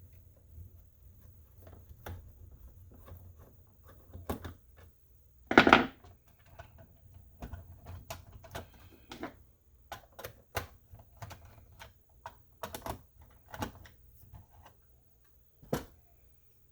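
Scattered plastic clicks and knocks from the back case of an X10S Express RC transmitter being handled and taken off, with one louder clunk a little under six seconds in.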